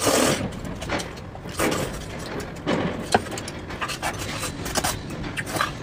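Close-miked chewing and mouth sounds of someone eating, coming in irregular bursts.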